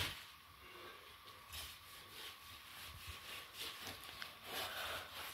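Long knife cutting through the ribs of a slaughtered animal's carcass: faint, irregular scraping and rasping strokes against meat and bone, coming more often after the first second or so.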